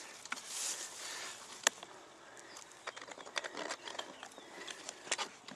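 Sharp clicks, knocks and short scrapes as the wooden lid of a swarm box, wedged down and sticky, is worked loose by hand. A brief hiss comes about half a second in.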